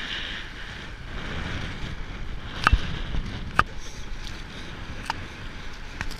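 Wind noise and road rumble picked up by a bike-mounted action camera while riding a road bike, with about half a dozen sharp clicks and knocks scattered through it, the loudest a little under three seconds in.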